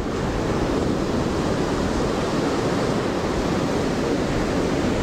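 Surf breaking on a sandy beach as a steady rushing noise, with wind buffeting the microphone.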